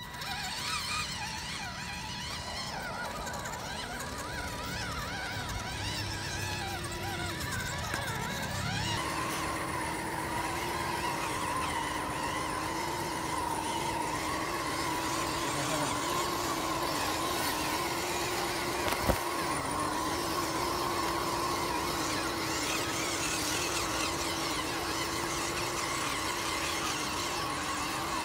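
Electric motors and gear trains of scale RC off-road trucks whining as they crawl, the pitch wavering up and down with the throttle. One sharp click about two-thirds of the way through.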